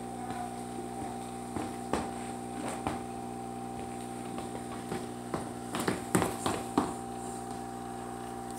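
Steady hum of aquarium filter equipment, with scattered light clicks and taps, several of them close together about six seconds in.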